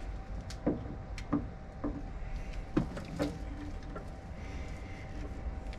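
A handful of sharp knocks and clunks, some with a short hollow ring, from a ride-on mower's cutting deck being handled and shifted into place, over a low steady rumble.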